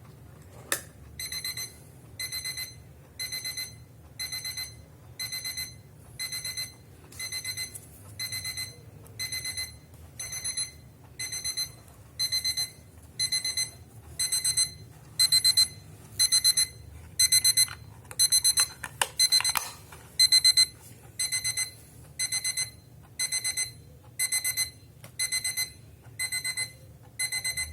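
Wincy quartz analog alarm clock's electronic beep alarm sounding: bursts of high-pitched beeping repeating about once a second, louder through the middle stretch. A sharp click comes just before the alarm starts.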